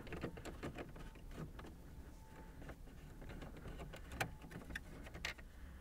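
Faint small clicks and taps of a socket driver and hands working a 7mm bolt out of plastic dashboard trim, with two sharper clicks in the last two seconds.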